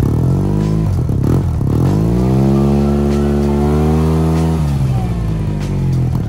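Yamaha TMAX 530 parallel-twin engine revving through a straight-through Termignoni full exhaust with its dB killers removed. A short blip about a second in, then the revs climb, hold for about two seconds and fall back toward idle.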